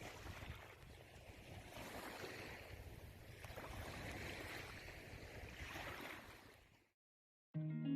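Moving water with some wind, a steady wash that swells and eases every second or so, fading out about seven seconds in. After a brief silence, strummed guitar music starts just before the end.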